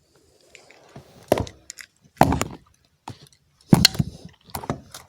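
Several sharp clacks and clatters of small hard objects knocking together and being put down, about five in all. The loudest come about one and a half, two and near four seconds in.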